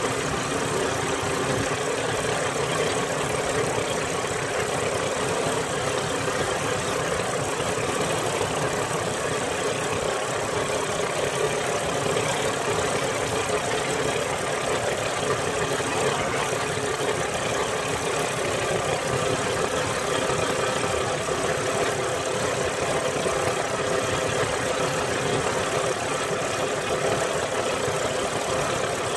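Engine of a motorized outrigger boat (bangka) running steadily under way, a constant hum that holds one pitch.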